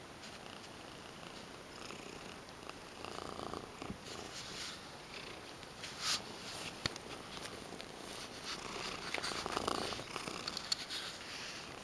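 Tuxedo cat purring while being brushed with a hard-bristled brush, the brush strokes scratching irregularly through her fur with a few sharp clicks.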